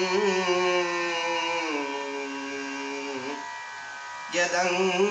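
A man singing a Sanskrit dhyana shloka in slow Carnatic style, holding a long note that steps down in pitch, over a steady drone. The voice drops out for about a second after about three and a half seconds, then returns near the end.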